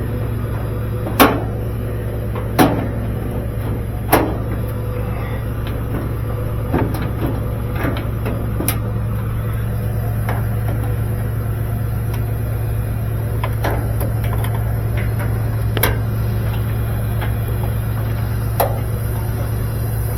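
Sharp knocks and clicks of dryer parts being handled during reassembly, a few seconds apart and loudest in the first few seconds, over a steady low hum.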